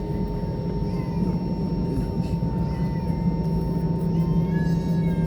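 Airliner cabin noise while taxiing after landing: the engines at idle and the cabin air system make a steady low drone with a thin, constant whine above it.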